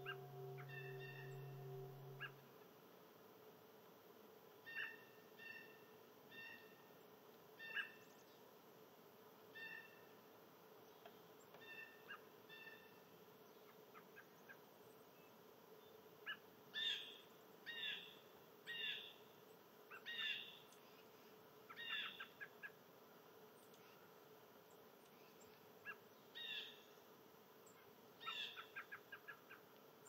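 Wild songbirds calling faintly. A short nasal note repeats about once a second, then louder, clearer calls come about once a second from about halfway through, with a quick run of notes near the end. A low steady hum stops about two seconds in.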